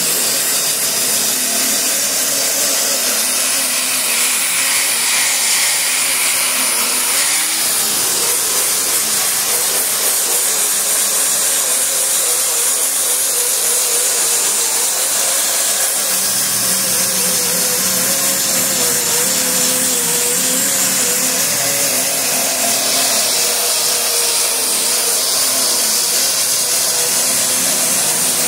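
Air-powered sander with a coarse 8-inch disc grinding old paint and primer off a steel car body panel. It gives a loud, steady hiss with a whine whose pitch wavers as the tool is pressed and swept back and forth.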